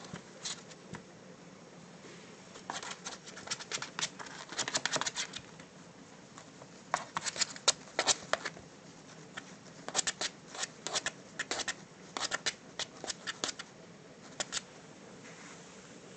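Maltipoo puppy chewing and scrabbling at a fabric GPS case on carpet: bursts of quick clicking and rustling from teeth, claws and the case, with short pauses between bursts.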